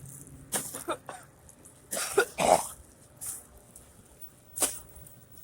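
A man coughing, the loudest coughs a pair about two seconds in, with a few shorter coughs or throat-clearing sounds before and after.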